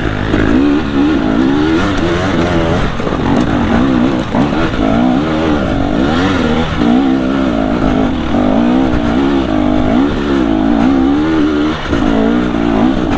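Single-cylinder two-stroke engine of a 2022 KTM 250 XC TPI dirt bike revving up and down over and over as the throttle is worked, its pitch rising and falling every second or so.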